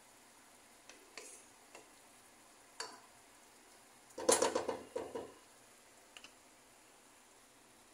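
Wooden spatula stirring ground pork and onion in a nonstick frying pan: scattered light knocks and scrapes against the pan, with the loudest run of scraping knocks about four to five seconds in, then a couple of small clicks.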